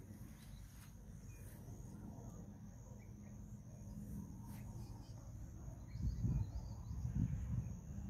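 Faint low outdoor rumble, then from about six seconds in a run of irregular low thuds: footsteps of the person carrying the phone, with handling of the phone.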